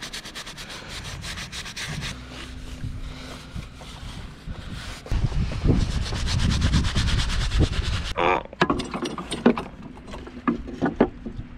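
A rag rubbed briskly back and forth over fibreglass, wiping it down with mineral spirits to clean the sanded surface before epoxying. In the last few seconds there are several knocks of a wooden board being handled.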